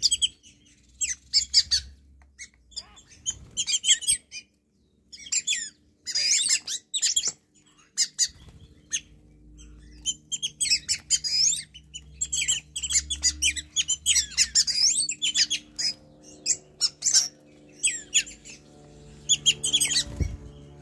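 A flock of wattled starlings calling: high-pitched, quickly gliding calls and chatter in clusters every second or so, with short gaps between.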